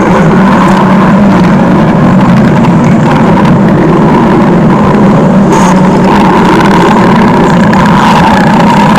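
Loud stomach growling sound effect: a steady, unbroken rumble.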